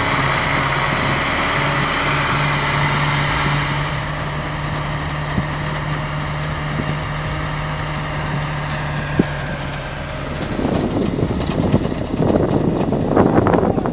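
Heavy vehicle engine running steadily at one pitch while a six-wheel-drive army truck stuck in snow is hauled out by cable. About ten and a half seconds in, the steady engine note stops and an uneven, gusty noise takes over.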